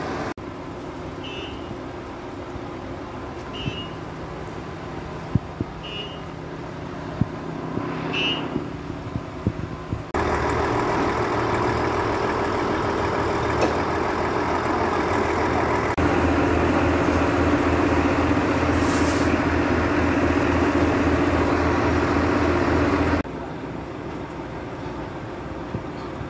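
Heavy truck's diesel engine driving its hydraulic loader crane. For the first ten seconds it runs low with a short high beep about every two seconds. It then steps up to a louder steady run, rises again to a heavier even throb about sixteen seconds in, and drops back abruptly a few seconds before the end.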